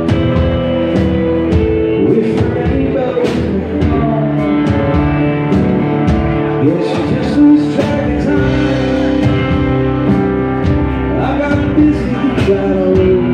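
Live country song: a man singing while strumming an acoustic guitar, played through a PA.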